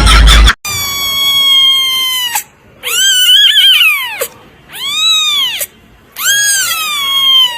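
Cat meowing loudly: four long, drawn-out, high-pitched meows, each rising and then falling in pitch.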